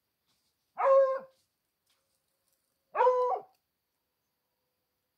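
Hunting dog barking twice, about two seconds apart; each bark is a drawn-out call of about half a second, held at a steady pitch.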